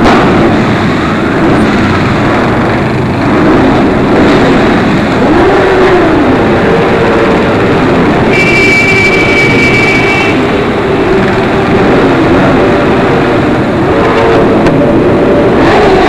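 Motorcycle and quad bike engines riding slowly in a column, their pitch rising and falling again and again as they are revved and eased off. A steady high tone sounds for about two seconds near the middle.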